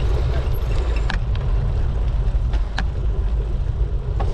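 Wind rushing over the microphone of a bike-mounted camera while cycling, with tyre noise on the road and a few scattered light ticks.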